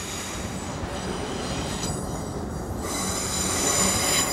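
Passenger train's wheels squealing as it runs over curved track and points: several steady high-pitched squeal tones over a rumble of wheels and engine, growing louder toward the end.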